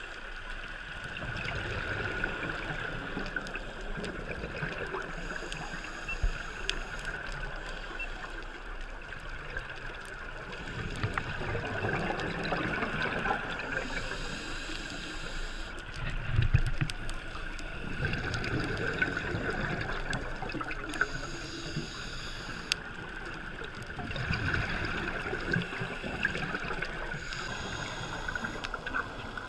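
Underwater sound picked up by a GoPro Hero 3 in its waterproof housing: a scuba diver's regulator breathing and exhaled bubbles gurgling in slow, repeating swells every few seconds over a steady muffled water noise. Scattered small clicks run through it.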